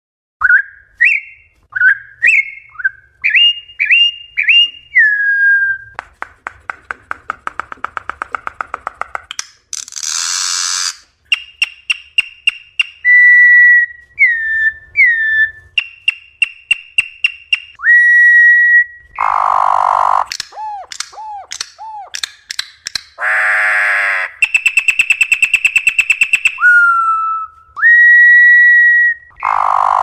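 Campo troupial (corrupião) singing a varied song: loud, clear whistled notes and quick upslurred phrases repeated one after another, broken by fast dry rattles and a few short harsh, buzzy notes.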